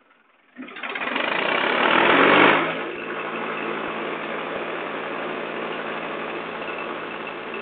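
Tractor engine running, loudest for the first couple of seconds and then settling to a steady run.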